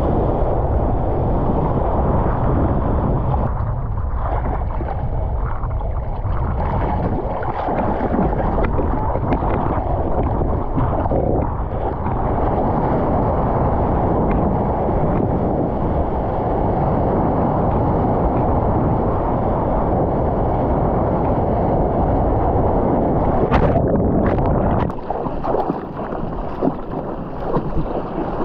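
Loud, steady rush of wind and water on a surfboard-mounted action camera as the longboard glides along a wave, spray hitting the board. The rush drops off a few seconds before the end as the ride slows, with some splashes.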